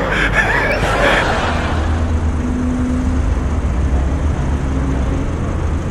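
Street traffic: a steady low rumble of cars driving past, with a faint engine tone rising out of it for about a second midway.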